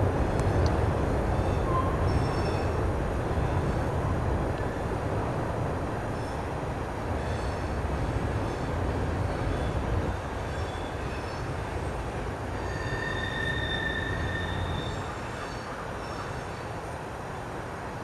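A train running past, its low rumble slowly fading, with high wheel squeal: short squeaks throughout and one steady squeal for about two seconds a little past the middle.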